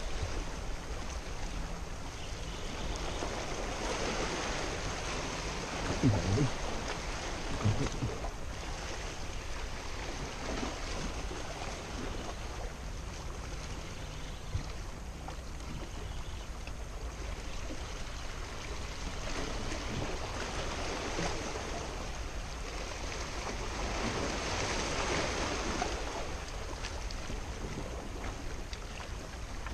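Sea waves washing in and out among the rocks of a breakwater, swelling and easing, with a steady low wind rumble on the microphone. A few dull bumps come about six and eight seconds in.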